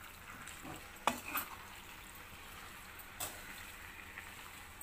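A metal spoon stirring hot chicken pickle in oil in a metal pan: a faint steady sizzle, with a few knocks of the spoon against the pan about a second in and again about three seconds in.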